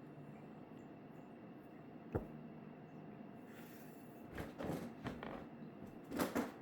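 Quiet room tone with a sharp click about two seconds in, then a few short rustles and light knocks in the second half.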